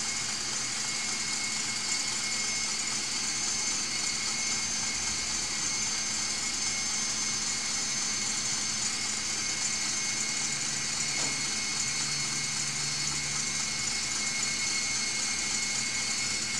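Electric stand mixer running steadily at full speed, whipping egg yolks and whole eggs into a foam, with an even motor hum and whir.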